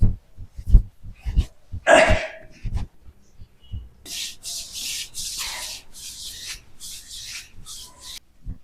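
Hands working on a person's body: about five dull thumps in the first three seconds, then a quick run of rubbing swishes, about two a second, that stops shortly before the end.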